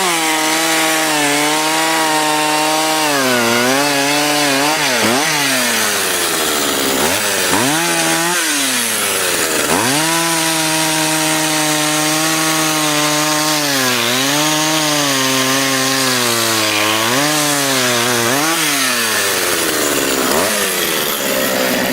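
Two-stroke chainsaw cutting into a tree trunk during felling, running loud at high revs; its engine pitch sags again and again as the chain bogs down in the cut, then picks back up.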